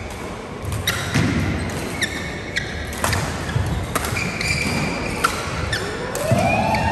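Badminton play: sharp racket strikes on shuttlecocks at irregular moments, with court shoes squeaking on the floor and a longer squeal rising and falling near the end.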